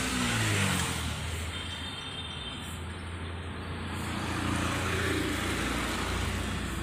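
Road traffic going by: a motor vehicle's engine running with a steady low hum and road noise, a little louder near the start and again about five seconds in.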